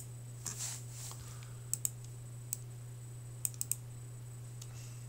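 Scattered sharp clicks of a computer keyboard and mouse, about seven in all, a few in quick pairs and triplets, over a steady low electrical hum, with a brief soft rustle near the start.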